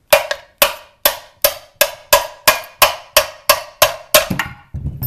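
A hammer striking a screw set into the end of a kayak pedal drive's shaft, about a dozen sharp blows at roughly three a second, with a low thump near the end. The blows drive the shaft out through the housing to free its bearing and seal.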